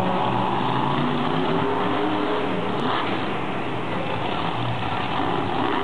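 Monster truck engine revving as the truck drives, its pitch rising and falling with the throttle over a steady background din.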